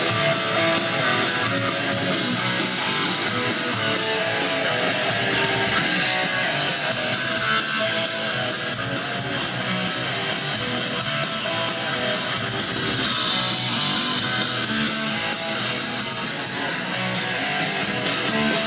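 Guitar music played back through a Gradiente BS-125 three-way speaker (8-inch woofer, midrange and tweeter), playing steadily.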